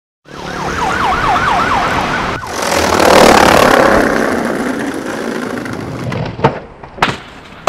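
A siren wailing in quick rising-and-falling sweeps for about two seconds, cut off abruptly. A loud rushing noise follows, then two sharp clacks of a skateboard near the end and another right at the close.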